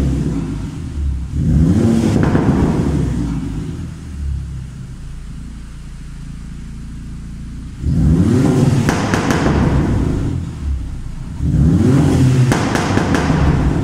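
Volkswagen Golf 5 GTI's turbocharged 2.0-litre four-cylinder engine revved three times, settling to a steadier low run between the first two. Each time the revs drop off, the exhaust pops and crackles on the overrun, because the ECU's overrun fuel cut-off has been switched off.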